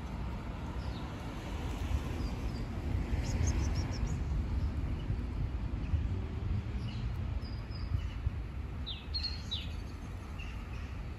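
Small birds chirping in a few short, high calls over a steady low rumble.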